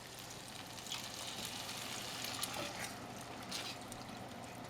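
Arborio rice for risotto sizzling in a hot pan as chicken broth is added, with a few short scrapes or stirring sounds.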